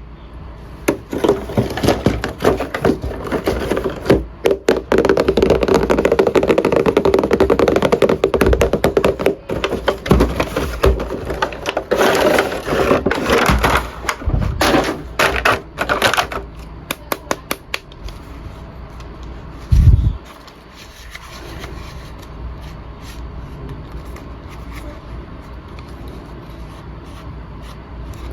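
Handling of plastic toy packaging and action figures: crackling, clicking and scraping for the first two thirds, with one loud thump about twenty seconds in.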